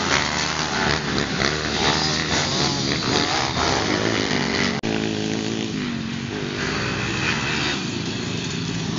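Small dirt bike engine revving up and down in a high, buzzy note as the bike is ridden. The sound drops out for an instant nearly five seconds in.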